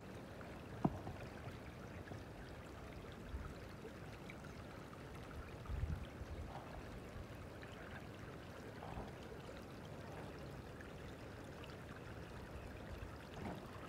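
Small creek water running steadily over shallows and brush. A sharp click about a second in and a low thump about six seconds in.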